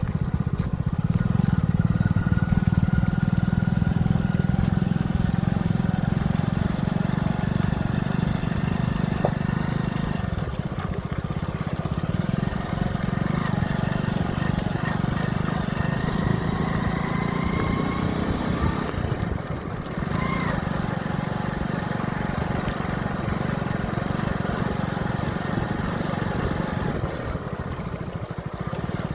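Motorcycle engine running steadily under way, with a continuous hiss of wind and road noise over it; the engine eases off briefly about twenty seconds in.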